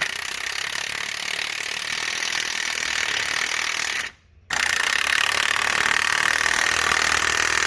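Impact wrench hammering a bolt in, in two long runs split by a short pause about four seconds in.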